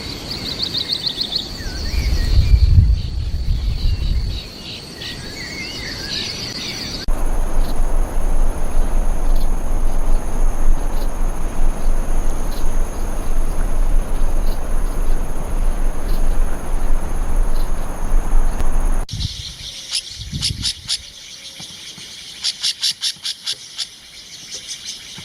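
Wild birds calling in three different recordings: first quick high chirps and trills over a low rumble, then a steady hiss with an even high-pitched drone, then fast runs of sharp repeated high notes.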